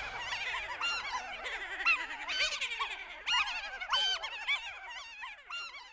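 Several high-pitched voices cackling with laughter, a chattering jumble of squeaky giggles that fades near the end.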